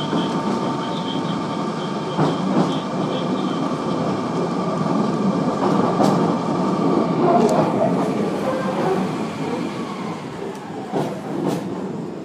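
Interior of a Class 483 electric train, ex-London Underground 1938 tube stock, running along the pier track: a steady rumble with a thin motor whine and occasional clicks of the wheels over rail joints. Near the end the whine and running noise drop away as the train slows to a stop at the platform.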